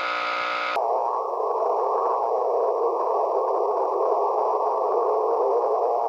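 Radio interference from a plasma TV heard through a shortwave receiver's audio on the 160-meter band. At first it is a faint buzz of steady tones, the interference left over with a toroid choke on the TV's power cord. Under a second in it switches to a loud, steady rushing hiss through a Kenwood TS-180S receiver: the original, unfiltered interference at 1.824 MHz, holding the S-meter near S9.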